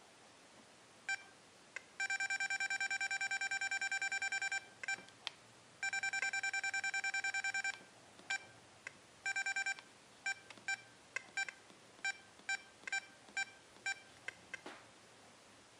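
XP Deus remote control beeping at each key press as the discrimination value is stepped down. There are two long runs of rapid beeps where a key is held, then single beeps spaced out, one per step.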